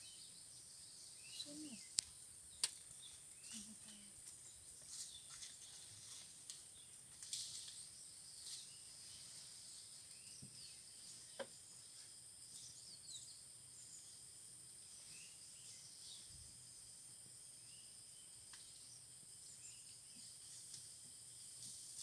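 Faint, steady high-pitched drone of insects in grassland forest, with a few short chirps and two sharp clicks about two seconds in.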